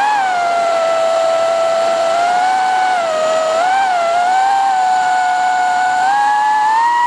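High whine of a small drone's electric motors, heard from a camera mounted on the aircraft, the pitch rising and falling with the throttle and climbing higher near the end.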